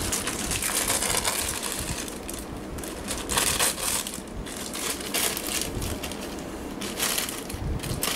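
Plastic packaging of a toy figure crinkling and rustling in irregular bursts as it is opened and handled.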